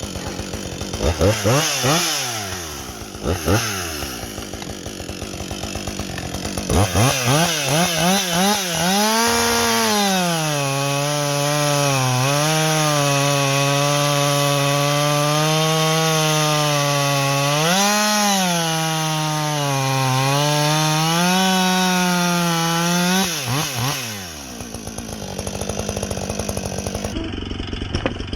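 Husqvarna 562XP 60cc two-stroke chainsaw, warm-restarted, revved in several quick throttle blips, then held at full throttle for about thirteen seconds with small dips before dropping back to idle near the end.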